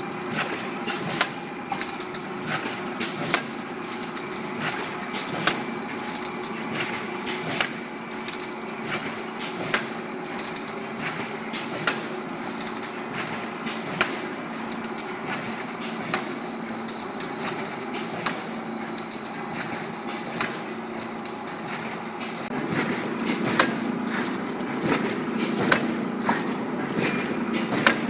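Automatic blister packing machine running: a steady mechanical hum with repeated sharp clacks from its press stations, the biggest about every two seconds. A louder low rumble comes in about three quarters of the way through.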